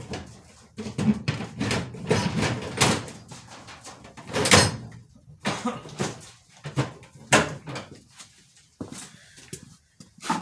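Irregular clanks and knocks of metal tools and parts being handled in a workshop, with one louder clatter about four and a half seconds in.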